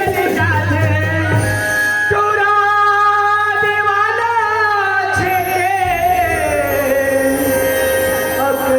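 Folk song being performed: a singer holds long, wavering notes over instrumental accompaniment.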